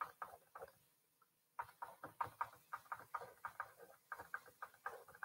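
Faint, irregular light clicks and taps, several a second, with a short pause about a second in.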